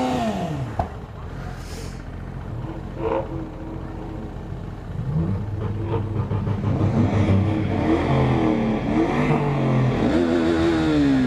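Vehicle engines idling and being revved, the pitch swooping up and down in repeated blips near the start and again through the last few seconds, with a steadier low idle in between.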